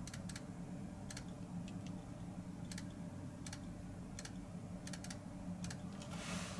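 Light, irregular clicks, about nine of them spread unevenly, over a steady low hum, with a short swell of hiss near the end.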